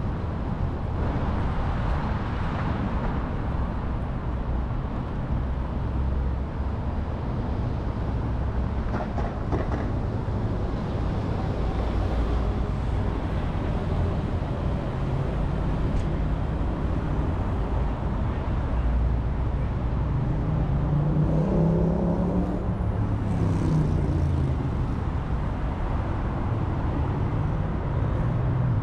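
City street traffic: a steady rumble of passing cars, with one vehicle's engine rising and then falling in pitch about three-quarters of the way through.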